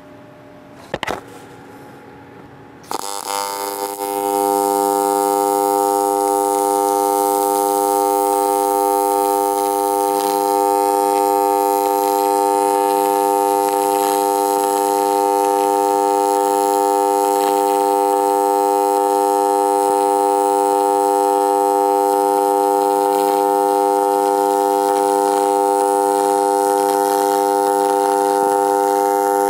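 AC TIG welding arc on aluminum, using a pure tungsten electrode at high amperage (about 250 amps). The arc starts about three seconds in and then holds a loud, steady buzzing hum.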